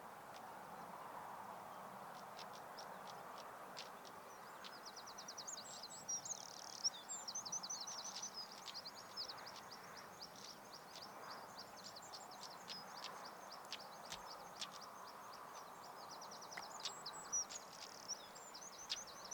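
A small songbird singing a long, fast run of high chirping notes that goes on almost without a break, over a faint steady background hiss.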